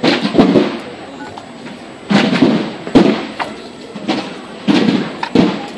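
Procession drums beating a slow, measured march: heavy drum strokes in pairs, repeating about every two seconds.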